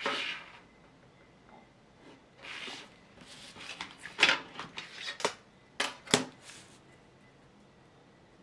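Writing on paper: a run of short scratchy strokes with pauses between them, a few sharper strokes about four to six seconds in, as a part label is written on a drawing.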